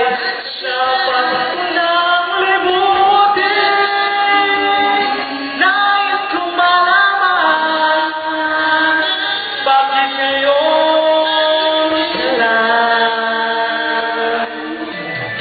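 A man and a woman singing a Filipino love-song duet into microphones, amplified through a PA, with long held notes.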